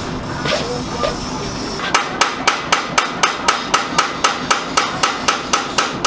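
Quick, even hammer blows on metal at a steel wheel rim, about four a second, each with a short ring, starting about two seconds in.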